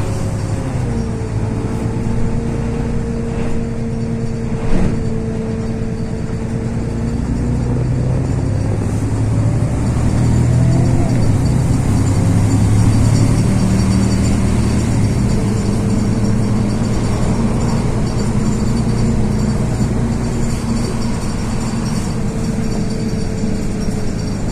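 LiAZ 6213 articulated diesel city bus heard from inside while moving: a continuous engine and drivetrain drone with a steady whine whose pitch falls near the start and again near the end as the bus changes speed. There is one sharp knock about five seconds in.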